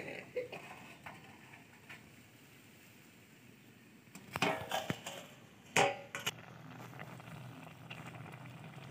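Apple pieces boiling in syrup in a large aluminium pot over a wood fire, with a faint steady bubbling and crackle. Two short, louder bursts of clattering come about halfway through.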